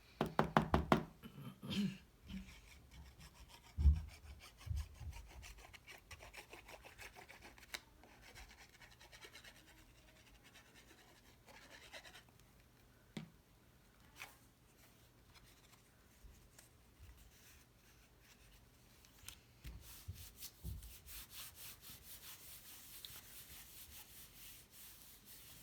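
Cardstock being handled, rubbed and pressed as two cut paper layers are glued together: light rubbing and scraping strokes, with a soft knock about four seconds in and a quick run of rapid scratchy strokes near the end.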